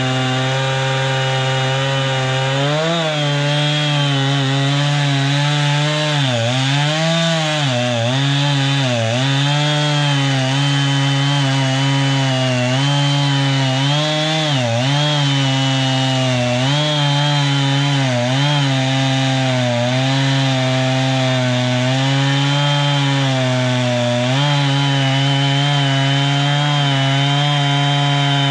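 Gasoline engine of a Norwood MX34 portable bandsaw mill running under load while the blade cuts through a log. Its pitch sags and recovers again and again as the cut bogs it down, then holds steady for the last few seconds.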